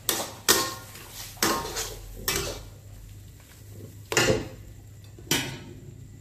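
Metal wok spatula and ladle clanging against a wok while tossing fried noodles: about seven sharp, irregular clangs with a pause in the middle, over a faint steady hum.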